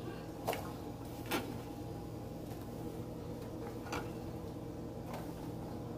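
Four light knocks of kitchen utensils on cookware, spread over the few seconds, with a steady low hum underneath.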